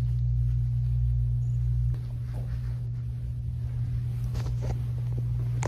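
A steady low hum, with a few faint clicks and rustles about four and a half seconds in and again near the end.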